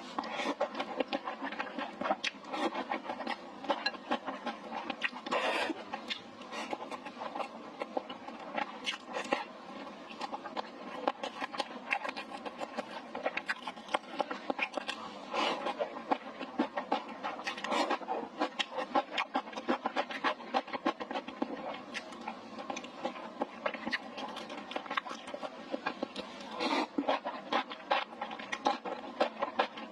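Person eating spicy stir-fried hot pot: continuous chewing, with many quick, irregular clicks and smacks.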